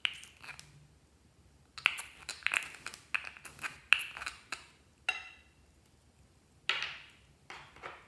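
Clear slime being handled and pressed, giving runs of sharp clicks and crackling pops, with a brief ringing ping a little after the middle.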